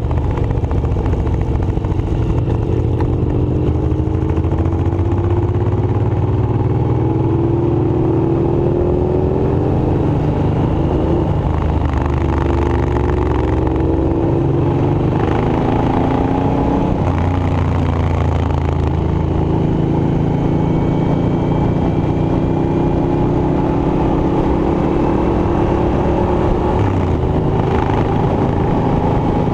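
An engine running loudly and continuously, its pitch repeatedly climbing slowly over several seconds and then dropping back.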